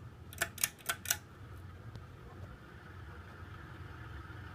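Several sharp clicks in the first second from the ceiling fan's pull-chain speed switch, then a 1988 Sears (Encon) Spinner ceiling fan running at medium speed with a steady hum, getting a little louder toward the end. The hum carries the noise of its badly worn bearings.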